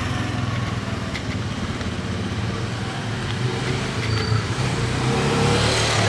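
Electric drive motor of a remote-control car chassis running as the cardboard road roller travels over loose gravel, with its tyres and roller crunching and ticking on the grit. The sound grows louder toward the end.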